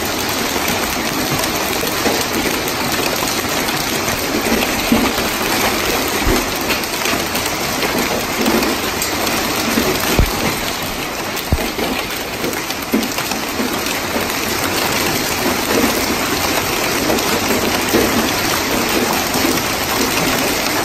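Small hail mixed with heavy rain pelting a concrete driveway, lawn and swimming pool: a dense, steady patter of hailstones and raindrops.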